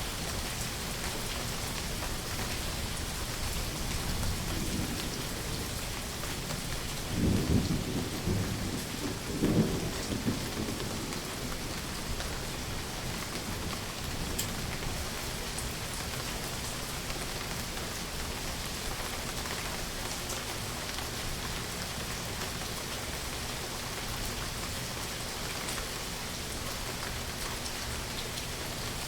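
Steady rain falling, with a low rumble of thunder that builds a few seconds in, swells to two louder peaks about seven and nine and a half seconds in, and dies away; the rain carries on evenly after it.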